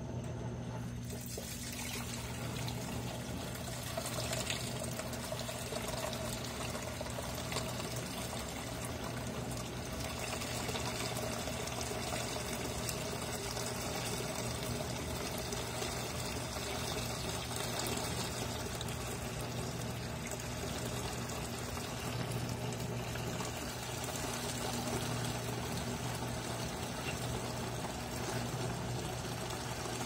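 Consul 13 kg washing machine's drain pump running with a steady hum while drained wash water pours from the drain hose into a tub of soapy water. The pour fills out a few seconds in, once the water reaches the pump in the machine's water-reuse drain mode.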